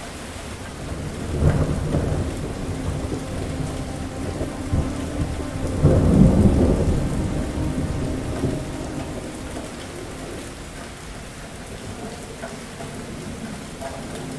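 Thunder rolls in about a second and a half in, swells to a louder peak around six seconds, and rumbles away over the next few seconds. Steady rain falls throughout.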